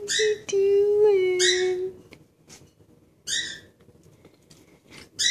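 Doberman pinscher whining: one high, drawn-out whine of about two seconds that drops slightly in pitch near its end, with short breathy puffs before and after it.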